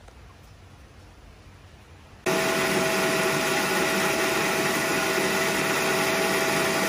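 Electric countertop blender switched on about two seconds in, its motor running steadily at one even pitch as it purées sliced tomatoes.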